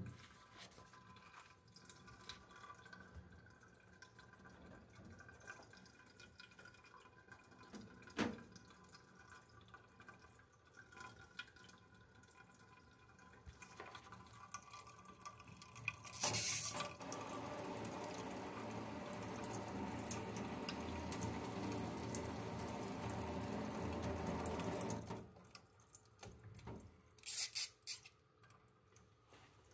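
Kitchen tap water running into a stainless steel sink: a faint thin trickle at first, then a louder steady rush of water for about nine seconds from a little past halfway that stops suddenly. A few sharp clicks near the end.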